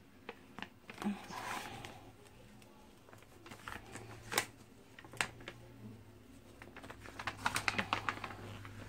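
Protective plastic cover sheet of a diamond painting canvas being peeled back and handled: faint crinkling with scattered sharp crackles, bunched together near the end.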